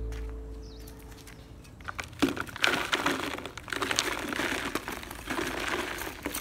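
Hands-on handling noise: irregular crinkling and rustling with many small clicks, starting about two seconds in after background music fades out.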